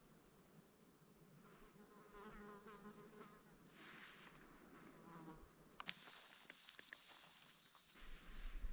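Hazel grouse whistle lure (manok) blown close by: a loud, long, high, thin whistle held for about two seconds, dropping in pitch at the end, starting near six seconds in. Earlier, from about half a second in, a fainter high thin whistle with a short falling trill.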